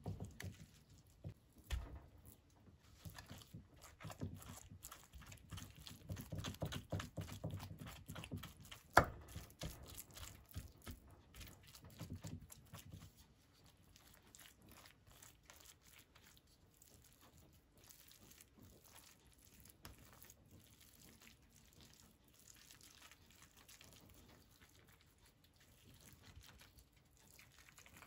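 Hand food preparation with raw ingredients: a dense run of quick crunching and scraping strokes, louder for about the first half, with one sharp click about nine seconds in, then softer and sparser.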